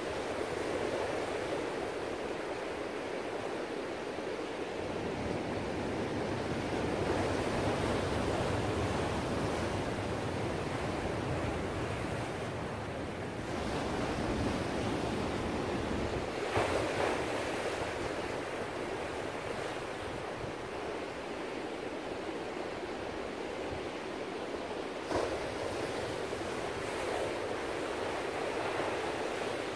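Ocean surf: waves breaking and washing in, a continuous rush of water that swells and eases every several seconds.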